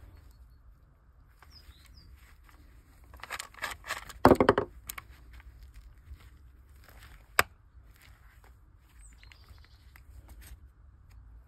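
Handling noises with no motor running: a burst of rustling and rattling a few seconds in, then a single sharp click. Faint short bird chirps come and go in the background.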